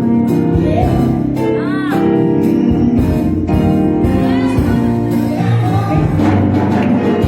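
Music: a song with a singing voice over instruments, the voice gliding up and down on held notes.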